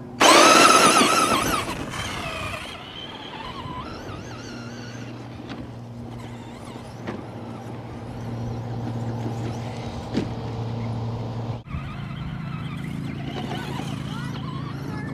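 A radio-control off-road car passes close by with a loud high-pitched whine that drops in pitch as it goes past, followed by a steadier low drone of vehicles running further off.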